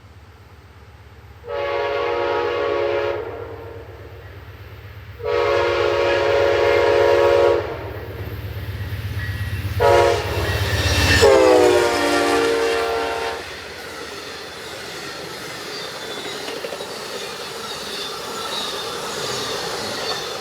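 Amtrak passenger locomotive's horn sounding the grade-crossing signal: two long blasts, a short one and a final long one that falls in pitch as the locomotive passes. A diesel engine rumbles underneath as it approaches, and the passenger cars then rumble and clatter past.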